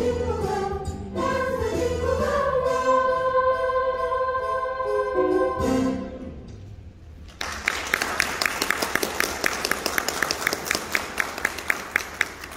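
Girls' choir singing a Christmas song, ending on a long held chord about six seconds in. After a short pause comes audience applause, with sharp claps at about five a second.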